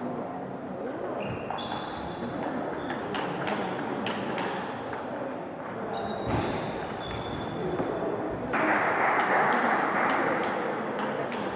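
Table tennis rally: the plastic ball clicking off bats and the table, with short high squeaks among the clicks and voices in the hall behind. A louder rush of noise lasts about two seconds near the end.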